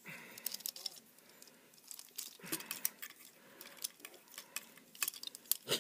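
Plastic toy-figure parts clicking and rattling as a Transformers Deluxe figure is handled and transformed, in a series of irregular small clicks.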